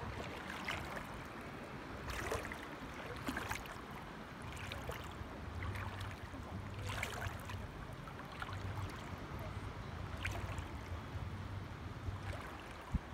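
Shallow sea water lapping and splashing, with irregular small splashes every second or two over a steady wash.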